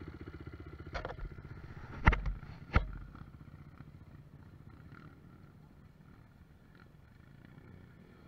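Trail motorcycle engine idling with an even chug, with two sharp knocks about two seconds in; the engine sound then fades away as the bike pulls off.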